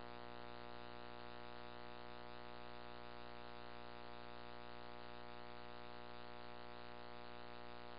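Faint, steady electrical hum and hiss of an idle radio scanner feed, with no transmission on the channel.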